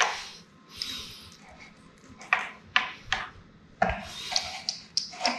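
Handling noise as a plastic doll is picked up and moved around a cardboard play box: scattered knocks, taps and rubbing, with a run of quicker clicks near the end.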